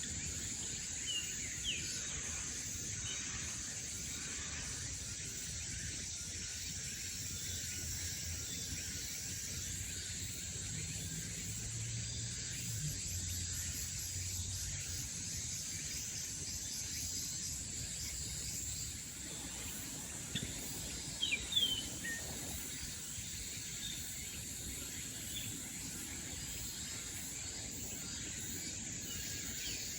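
Forest ambience on a summer morning: a steady, high insect drone with a few short bird calls, one pair about a second in and a few more past the middle.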